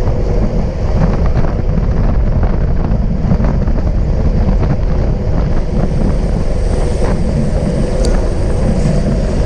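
Wind buffeting the microphone of a bicycle-mounted action camera at racing speed: a loud, steady, low rumbling rush, with a faint tick about eight seconds in.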